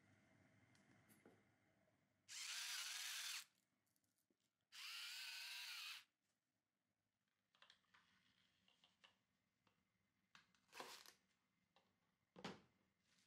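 Electric salt-and-pepper grinder running in two whirring bursts of about a second each, seasoning the fish. After them come faint clicks and crinkling of cling film.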